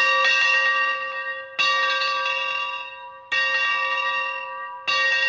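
A bell struck at a steady pace, about once every second and a half, each stroke starting sharply and ringing out, fading before the next.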